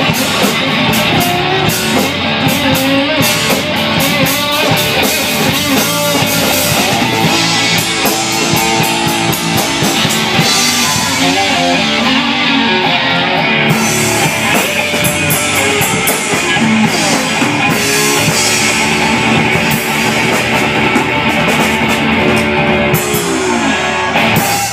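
Live blues-rock trio: slide guitar on a resonator guitar over electric bass and drum kit, with notes gliding up and down. A final held note bends downward and the band stops together right at the end.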